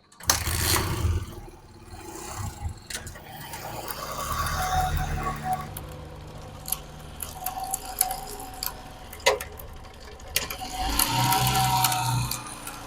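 Motorcycle engine running with a rattling, clicking drive chain, the chain noise fault the repair sets out to cure.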